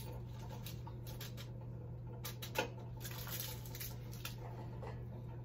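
Faint paper rustling and a few light taps as sodium nitrite is tipped from a folded weighing paper into a beaker, over a steady low hum.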